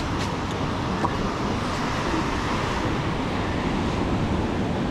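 Steady rushing noise of sea surf breaking on a beach, mixed with wind.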